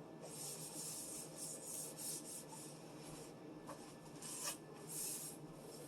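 A cloth wiping down the inside of a refrigerator, in a few faint rubbing strokes of about a second each.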